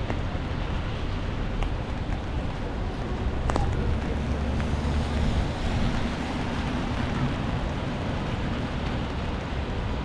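City street ambience: a steady hiss of traffic on a wet road, with wind rumbling on the microphone. A brief click about three and a half seconds in.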